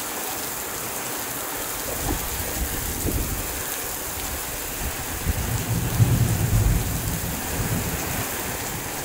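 Heavy rain falling steadily, with a low rumble of thunder coming in about two seconds in and loudest around six seconds in.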